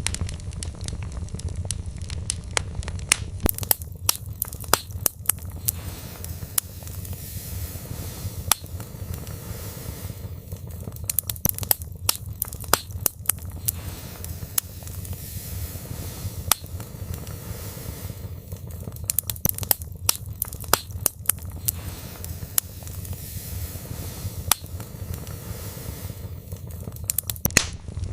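Wood fire burning in a fireplace, crackling with frequent sharp, irregular snaps and pops over a steady low rumble of flames.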